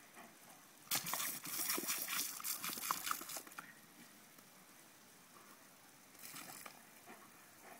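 Jet of water from a Gardena lawn sprinkler hissing and splashing as a German Shepherd snaps at the stream. The spray is loud for a couple of seconds starting about a second in, with small splashy clicks, and comes again briefly near the end.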